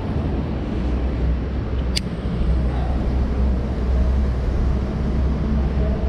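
Steady low rumble of road traffic, with one sharp click about two seconds in.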